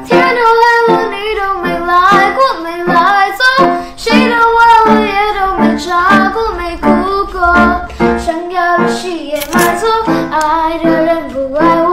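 Background music: a song with a high voice singing throughout.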